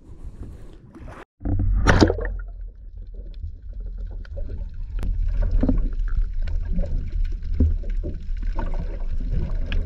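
Muffled sound through an underwater camera: a steady low rumble of moving water with scattered clicks and crackles. There is a short cut-out about a second in, and a louder splashy rush just after it.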